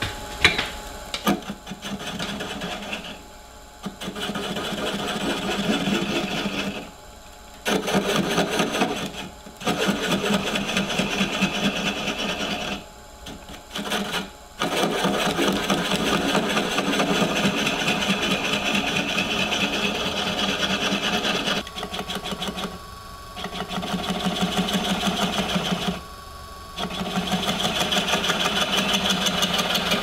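Spindle gouge taking light cuts on the foot of a walnut bowl spinning on a wood lathe, a cutting noise with a fast, even rhythm that comes in stretches of several seconds. It breaks off briefly half a dozen times as the tool is lifted. A sharp tap sounds about half a second in.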